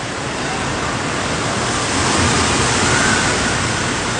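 Steady rush of water in an indoor water park, a continuous loud wash of splashing and falling water that swells slightly midway.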